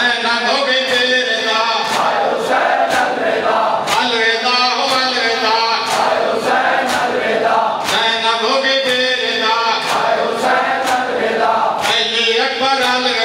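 A crowd of men chanting a noha (Shia mourning lament) together. Bare-chested mourners keep a steady beat of matam, palms slapping their chests in unison.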